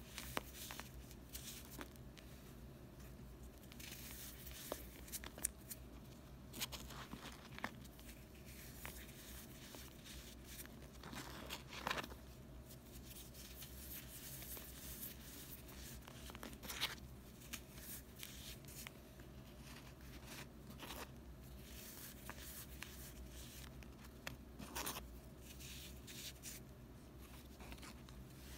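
Dried chunks of Comet and Ajax cleanser powder mixed with gym chalk being crushed and crumbled by hand, giving soft, irregular crunches and crackles as the slab breaks into powder, with a few sharper cracks.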